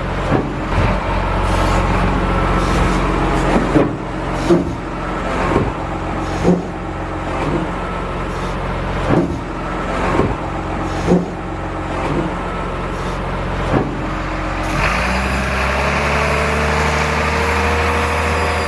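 Radio-controlled model construction machinery running: a steady motor and hydraulic hum with sharp knocks about once a second. About 15 seconds in, the hum changes and a slowly rising whine comes in.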